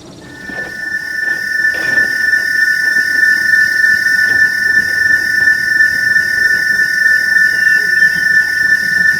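Steam locomotive whistle blowing one long unbroken blast of two steady notes, swelling louder over the first couple of seconds.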